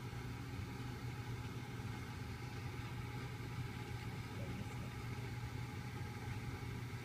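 Steady low hum under a faint even hiss, with no distinct sounds standing out.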